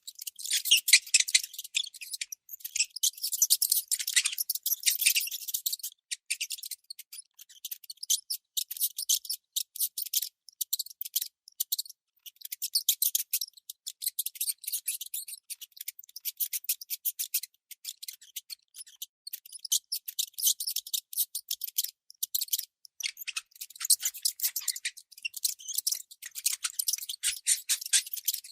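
Baby mouse squeaking: quick runs of thin, high-pitched squeaks that pile up densely, broken by brief pauses.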